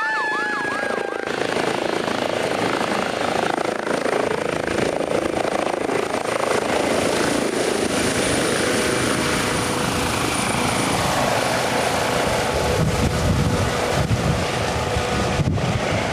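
An emergency-vehicle siren wails and fades out in the first second or so. It gives way to the steady noise of a medical helicopter's engine and rotor, with a low rotor thumping growing stronger in the last few seconds.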